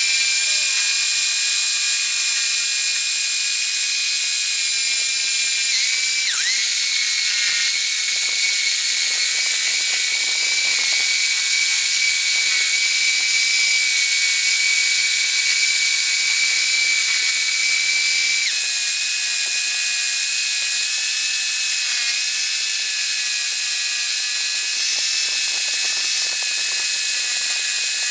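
Homemade scroll saw running as its blade cuts wood: a steady high-pitched mechanical whine of several tones, shifting slightly in pitch about six seconds in and again about two-thirds of the way through.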